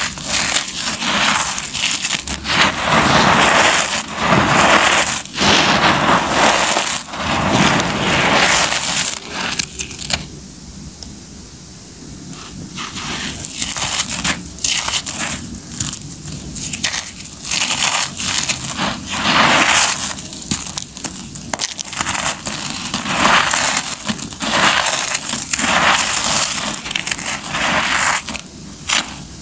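Dry concrete lumps crunching and crumbling under bare fingers, with loose concrete grit and powder shifting and trickling. A run of crunches with a quieter lull about ten seconds in.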